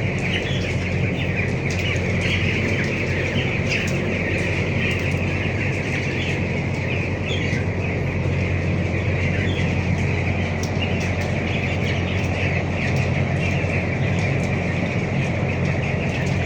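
A large flock of young broiler chicks peeping together in a constant chatter, over the steady hum of a shed fan.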